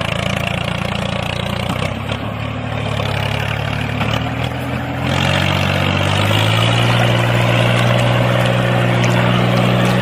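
Small electric motor of a model tractor running steadily, driving a miniature water pump through a jointed shaft, with a low hum under a hiss. About halfway through the hiss grows and the hum steps up slightly in pitch.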